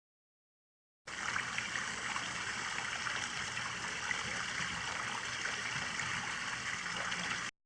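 Water from a rock disappearing waterfall running steadily, splashing and trickling over the rocks. It cuts in about a second in and stops abruptly just before the end.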